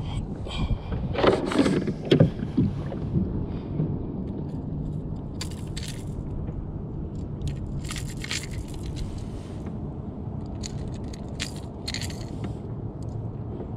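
Handling noises from an angler working a freshly caught bass in a plastic kayak. A cluster of knocks and scrapes comes about one to two seconds in, then several short, high rattles, like keys jangling, follow in spurts, over steady wind noise on the microphone.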